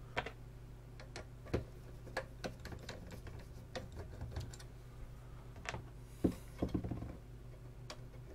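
Small scattered clicks and ticks of a screwdriver working the T10 Torx screws out of a small metal plate over a CD player's tray drive gear, with a few louder knocks about six seconds in as the plate is handled. A steady low hum runs underneath.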